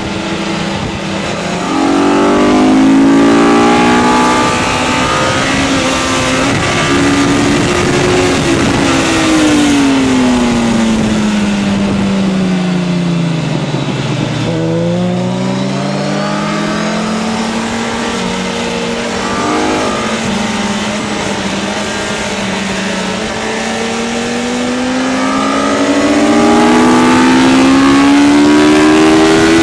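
Onboard sound of a motorcycle engine at track speed over steady wind rush. The engine note drops steadily for several seconds as the bike slows into a corner about halfway through, then climbs again as it accelerates out, rising most in the last few seconds.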